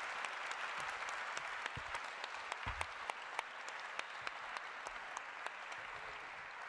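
Audience applauding, many hands clapping in a steady patter that slowly dies down.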